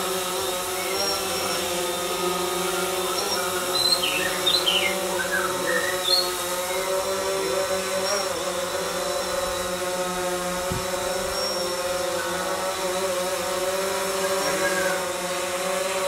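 DJI quadcopter drone in flight, its propellers giving a steady multi-tone buzz that wavers a little in pitch.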